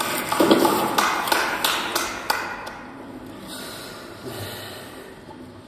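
A large audience in a hall: scattered last claps and the shuffle of people taking their seats, fading after about two and a half seconds to a low rustle.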